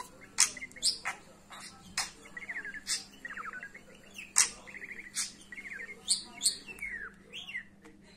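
Budgerigar chattering excitedly: many sharp short chirps mixed with quick rippling trills and a few downward-sliding calls near the end.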